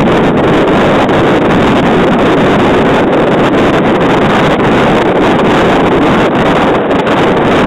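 Loud, steady wind noise buffeting the microphone, over the sound of a boat on choppy water.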